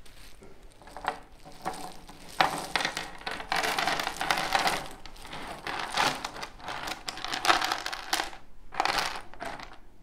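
Wentworth laser-cut wooden jigsaw puzzle pieces pouring out of a cloth drawstring bag and clattering onto a wooden tabletop, a dense rattle of small wooden clicks. They come in several pours, with a last burst near the end.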